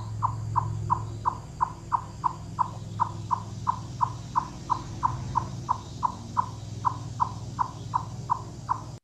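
Eastern chipmunk calling: a long, even series of single short chips, about three a second, over a low steady hum. This is the call chipmunks use to alert other chipmunks to a potential threat.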